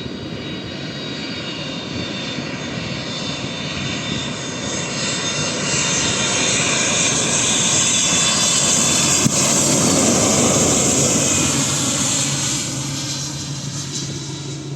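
Airliner on landing approach flying past: a steady rush of engine noise with a high whine, growing louder to a peak about two-thirds of the way in, then fading.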